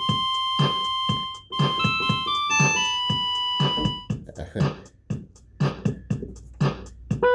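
Electronic home keyboard playing a few held notes in a bright preset voice, stepping up in pitch, over a steady built-in drum rhythm of about two beats a second. The notes stop about four seconds in and the drum rhythm carries on alone.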